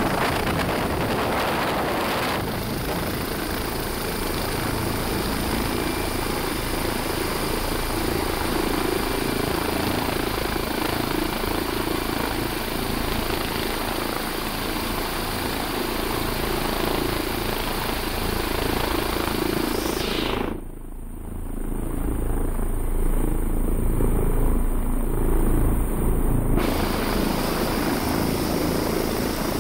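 Helicopter's rotor and turbine engines running steadily close by. The sound goes muffled for a few seconds about two-thirds of the way through.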